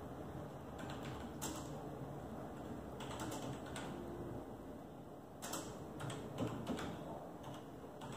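Typing on a computer keyboard: scattered keystrokes in a few short runs, the busiest run about five and a half to seven seconds in.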